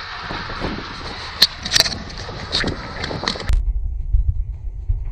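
Handling noise on the camera as it is moved and set up: rustling with several sharp clicks and knocks, then about three and a half seconds in the sound turns suddenly muffled, leaving only a low rumble.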